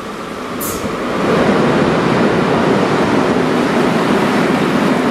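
A train passing on a nearby line: a loud, steady rushing rumble that swells about a second in.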